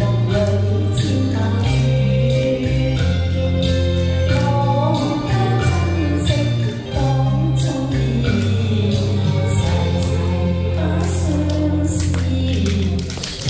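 A woman singing a nostalgic Chinese pop song into a microphone over instrumental accompaniment with a steady bass line and beat.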